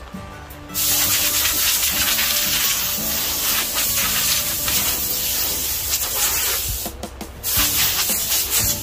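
A power tool abrading the wooden carving with a loud, steady, scratchy hiss that starts about a second in and drops out briefly around seven seconds, over background music.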